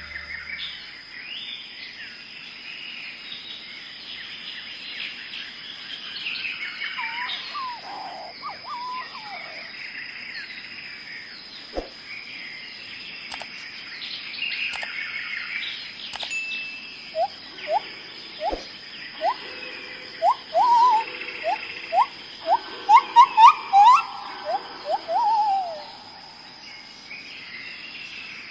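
Forest bird chorus, many birds chirping and singing together over a steady thin high tone. About two-thirds of the way through, one bird starts a loud series of short rising whistled notes, about two a second, lasting roughly nine seconds.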